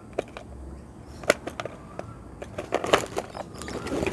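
Tools being handled and set down: scattered light clicks and knocks, with two louder knocks about a second in and about three seconds in.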